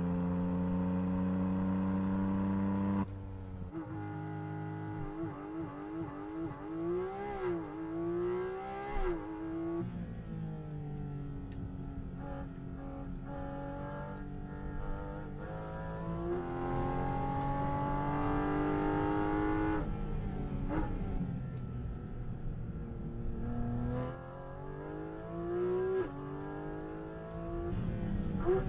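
Naturally aspirated 4.0-litre flat-six of a Porsche Cayman GT4 RS being driven hard: it holds a steady high note, then drops off about three seconds in. It then revs up and down through the gears, with quick blips on the downshifts and several long pulls rising in pitch.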